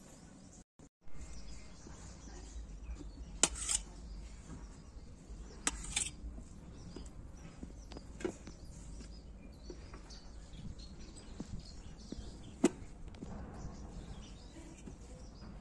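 A small knife cutting and scraping a ripe papaya over a stainless steel plate: scattered sharp clicks and slicing sounds, a few of them much louder than the rest, over a steady low background hum.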